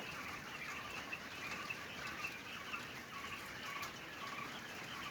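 A flock of a thousand or more young laying quail calling together, a dense, unbroken chatter of short high chirps.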